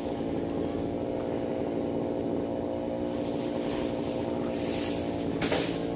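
Two-stroke chainsaw running at idle, a steady engine drone, briefly louder about five seconds in.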